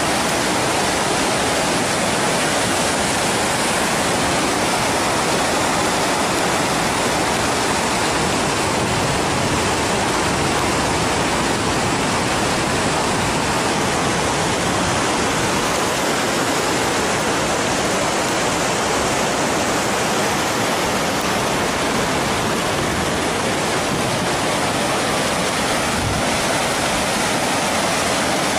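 Waterfall and cascades rushing steadily, a constant, even noise of falling water.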